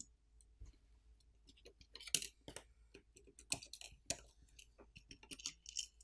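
Faint clicks, taps and light scrapes of a smartphone main board and its flex cables being handled and lifted out of the phone's frame. There are a few sharper clicks from about two seconds in.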